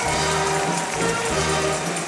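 Lively music with a steady beat and a bass line.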